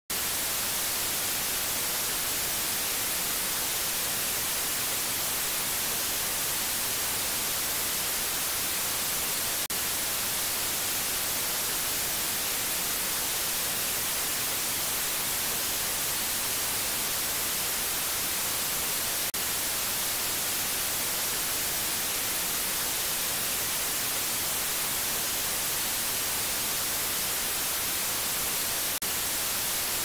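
Steady white noise: a constant, even hiss, strongest in the highs, with a brief slight dip about every ten seconds.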